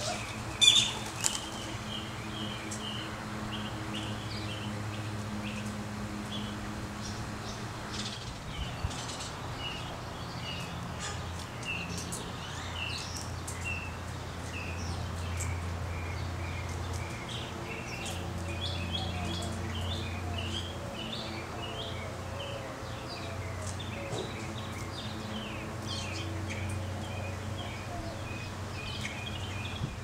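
House sparrows chirping at a seed feeder, many short chirps overlapping throughout, over a steady low hum. A sharp click stands out about a second in.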